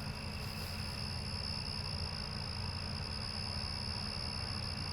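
Steady high-pitched chorus of crickets, unbroken, over a low steady hum.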